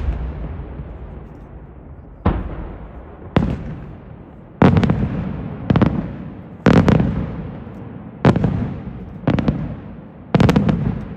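Aerial firework shells bursting in steady succession: about eight sharp bangs roughly a second apart, each followed by a rolling echo that dies away.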